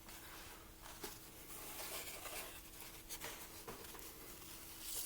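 Faint handling noise, soft rustles and a few light ticks, over a thin steady hum.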